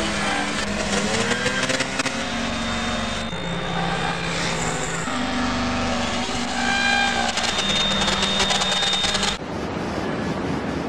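Loud, distorted droning sound effect of held tones and sliding pitches that shift every second or two. Near the end it cuts abruptly to a harsh hiss.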